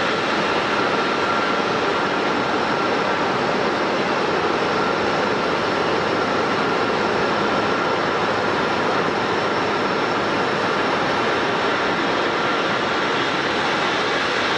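Jet airliner's engines running at a steady level: an even rushing noise with a steady high whine, neither rising nor falling.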